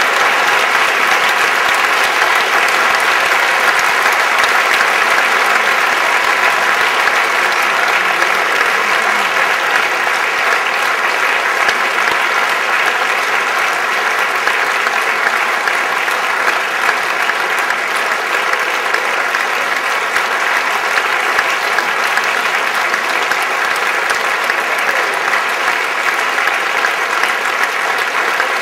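Large audience applauding: dense, unbroken clapping that holds steady throughout.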